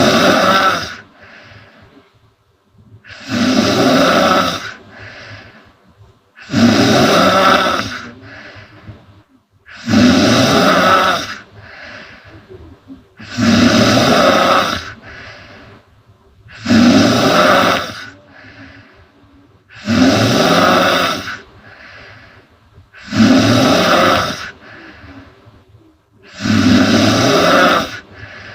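A woman snoring loudly and regularly, about one rough snore every three seconds. Each snore lasts about a second and a half and is followed by a softer breath out.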